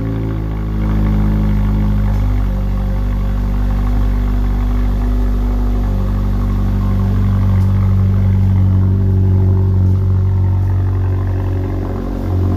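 A 10th-gen Honda Civic's 1.5-litre turbo four-cylinder idling steadily through a custom exhaust with the muffler and resonator deleted, giving a low, even rumble. The idle settles slightly in pitch about two seconds in.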